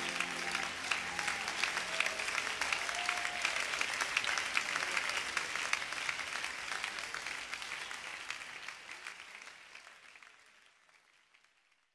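Church congregation applauding as the music ends, with the last held notes dying away in the first moment. The applause fades out over the last few seconds.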